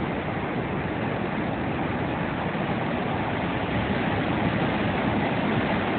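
Water gushing out under a dam's sluice gate into the river below: a steady, loud rush of churning white water.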